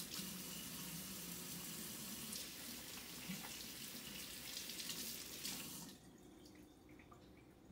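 Kitchen faucet running into a stainless steel sink while hands are washed under the stream; the water is shut off suddenly about six seconds in.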